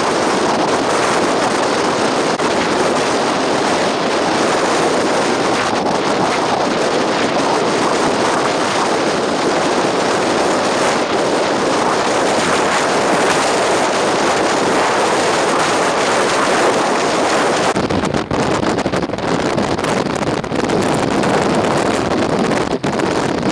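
Strong storm wind blowing across the microphone: a loud, steady rush of noise with no let-up.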